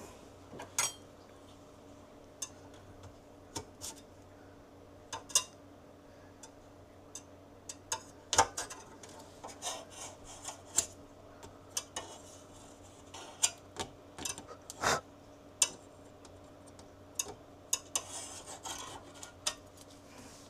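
Scattered scraping, rubbing and light clicks of hand-cleaning dried, burst food debris off the inside panels and metal of a home freeze dryer, with a faint steady hum underneath.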